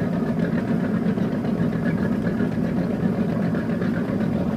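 Boat engine idling with a steady low hum.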